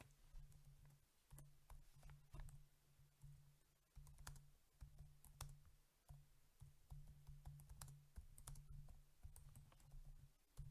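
Faint computer keyboard typing: a run of irregular keystroke clicks as a short line of text is typed.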